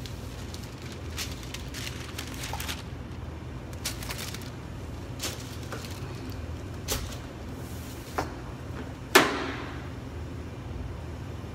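Kitchen equipment being handled at a bakery's deck oven: scattered clicks and knocks over a steady low hum, with one loud clang that rings briefly about nine seconds in.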